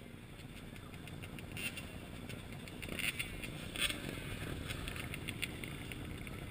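Dirt bike engines running around a crowd of waiting riders as a steady rumble, with a few sharp clicks and short rustles on the helmet-mounted camera.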